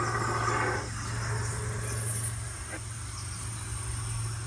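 A steady, high-pitched drone of summer insects in the trees, over a constant low hum.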